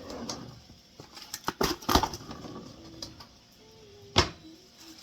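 A quick cluster of sharp clicks and knocks about a second and a half in, then a single louder knock past four seconds.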